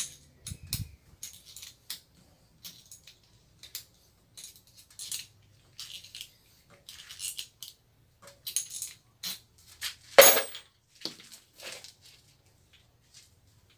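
Short metallic clinks and scrapes as a nut is tightened onto a bolt, with one louder knock about ten seconds in.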